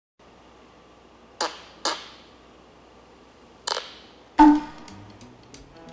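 Fart sound effect played as three short, airy puffs over quiet background music, followed about four seconds in by a louder pitched hit.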